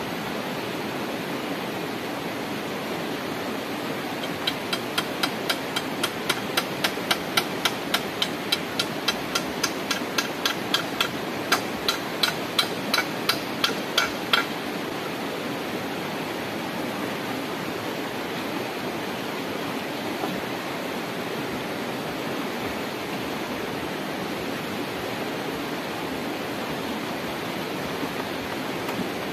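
A hammer striking wood in a steady run of about three blows a second for some ten seconds, then stopping, as the wooden frame of a treehouse is built. Behind it runs the steady rush of a stream.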